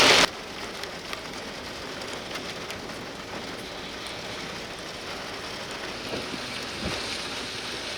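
Steady hiss of rain, with scattered light taps of drops. A louder rushing noise cuts off abruptly just after the start.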